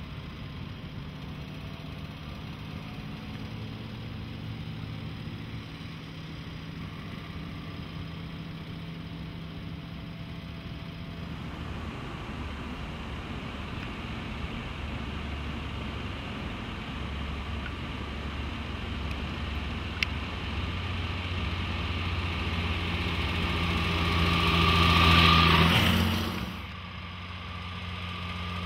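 Small pre-war open roadster's engine running steadily as the car drives along, growing louder as it approaches and loudest near the end, then dropping off suddenly and building again.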